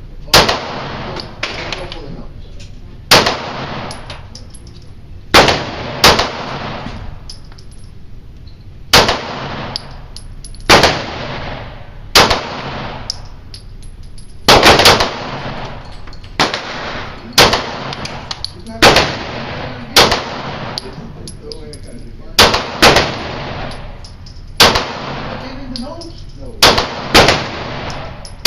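Handgun shots at a pistol range: about twenty shots fired at an uneven pace, several in quick pairs, each sharp crack followed by a short ringing tail.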